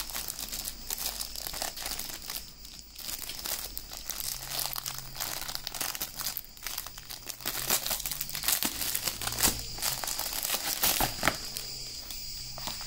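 Clear plastic shrink wrap crinkling and tearing as it is pulled off a pack of three small cardboard boxes, in dense irregular crackles.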